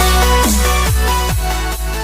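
Electronic outro music with a steady beat and repeated falling synth-drum sweeps.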